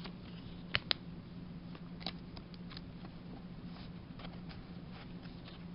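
Faint handling of Pokémon trading cards: scattered light clicks and taps, with two sharp clicks close together about a second in, over a low steady hum.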